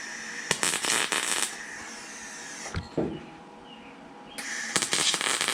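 Welder laying two short tack welds on thin sheet-metal fender panel: a crackling burst of about two seconds, a pause, then a second shorter burst near the end.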